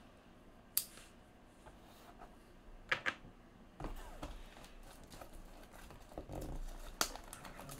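Hands handling a cardboard trading-card box and working at its plastic shrink-wrap: a few sharp clicks and knocks over soft rustling of plastic and cardboard, which gets busier in the second half.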